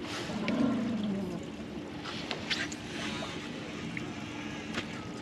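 Small fishing boat sitting with its engine idling: a steady low hum under wind and water noise, with a few sharp clicks. A short, louder sound falls in pitch in the first second.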